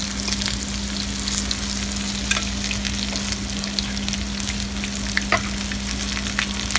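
Panko-breaded chicken cutlets frying in oil in a ridged grill pan, sizzling and crackling steadily, with a few sharper clicks along the way. A steady low hum runs underneath.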